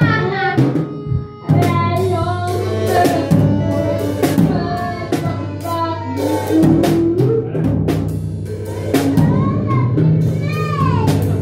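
Drum kit played with frequent, irregular hits over music with singing.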